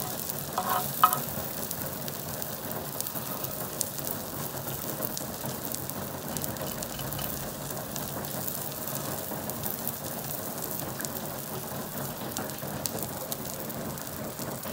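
An egg omelette sizzling and crackling in oil on an iron tawa. A metal spatula knocks against the pan twice near the start, with a short ring.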